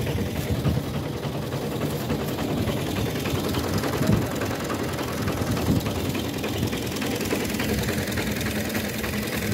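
Tractor's diesel engine running steadily.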